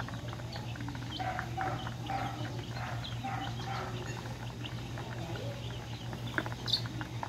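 A brood of young chickens and ducklings peeping and calling, many short overlapping calls, over a steady low hum.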